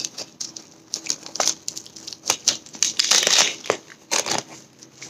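Foam packing wrap crinkling and rustling as it is pulled off a potted plant, in irregular bursts, loudest around the middle.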